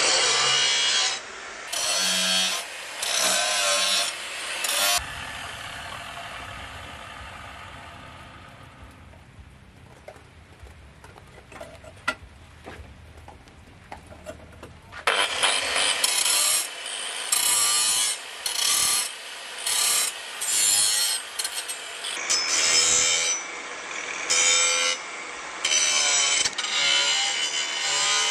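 Maktec angle grinder with a cutting disc cutting a disc-plough steel knife blank in short repeated passes, the cutting noise starting and stopping about once a second. A quieter stretch lasting roughly ten seconds breaks up the cutting partway through.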